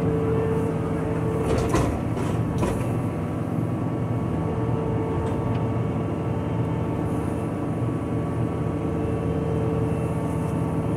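John Deere 85G excavator's diesel engine running steadily while the machine digs, heard from inside the operator's cab. A few knocks sound around two seconds in.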